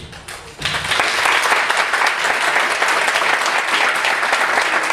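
Audience applause, breaking out about half a second in and holding steady.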